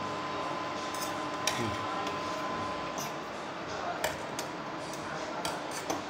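A utensil stirring noodles in a stainless steel pot, with irregular light clinks against the pot's sides, about half a dozen in all.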